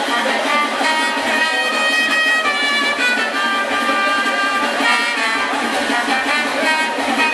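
Maracatu band's brass section playing a melody together in sustained, overlapping notes, over a steady low beat.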